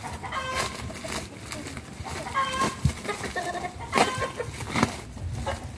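Chickens clucking in several short calls, with a few sharp knocks and rustles among them.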